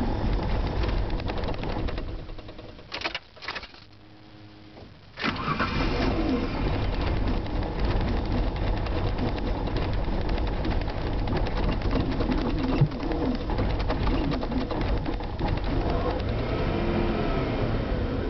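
Vehicle engine running, then dying out about two seconds in, with two brief sputters before it goes quiet. It fires up suddenly about five seconds in and keeps running steadily, from an engine that has trouble starting.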